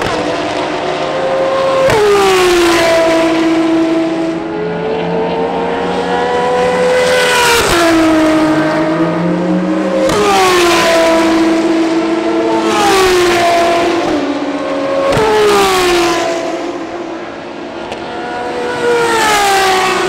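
Ferrari V12 track cars passing by at speed one after another, several times in a row. Each engine note rises to a loud peak and then drops sharply in pitch as the car goes past.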